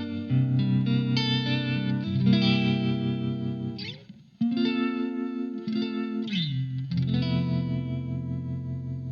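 Electric guitar played through a Blackstar ID Core Stereo 40 amplifier: ringing chords with a wavering modulation effect on the tone. Twice the pitch slides down between chords, about four seconds in and again near six and a half seconds.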